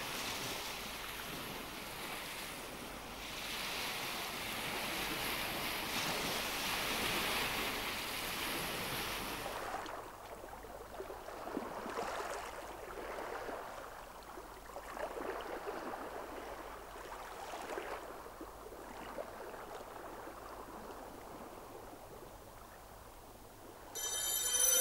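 Gentle waves on a lake shore: a steady rush of water that drops about ten seconds in to quieter lapping, with soft swells every second or two.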